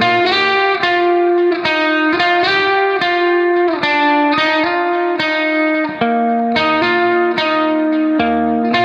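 Background music: a guitar playing a steady run of plucked notes.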